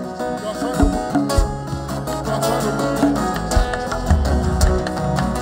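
Live worship band playing, with guitar over a steady bass and drum beat.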